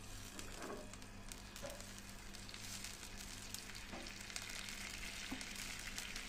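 Marinated chicken pieces frying in oil with a little added water in a pan, sizzling, while a metal spoon stirs them. The sizzle grows louder about halfway through, with small clicks from the spoon.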